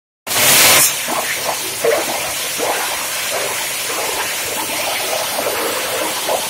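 PET bottle grinder (plastic scrap crusher) running with a steady, hissing rush, with irregular crackling as plastic bottles are chopped. The sound starts just after the beginning with a brief, louder rush.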